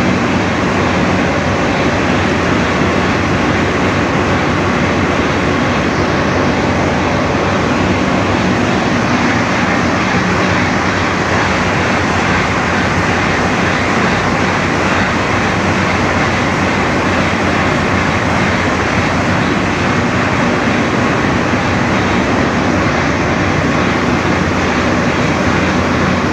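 Loud, steady din of a ship's engine room: running machinery making a constant noise with a low hum beneath it.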